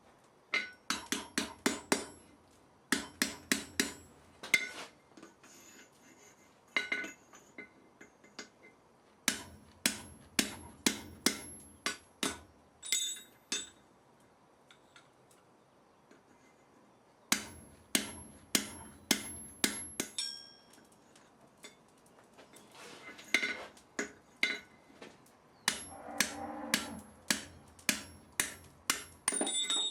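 Blacksmith's hammer striking iron on an anvil in five bursts of rapid blows, about four a second, each strike ringing sharply, with pauses of a few seconds between bursts.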